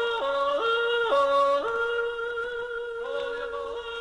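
A voice yodeling, flipping sharply back and forth between a low chest note and a high falsetto note about an octave above, with a long held high note in the middle.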